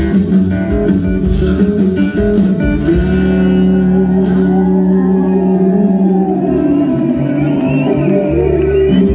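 Live country band, with electric guitar, upright bass and drums, playing an instrumental passage, then holding a long sustained chord from about three seconds in as the song ends.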